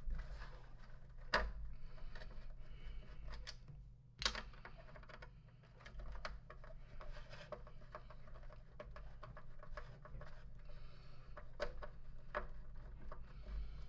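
Hands working a part loose from the plastic housing of a Lindhaus HF6 canister vacuum: scattered small clicks, taps and scraping of hard plastic, with two sharper clicks about one and a half and four seconds in.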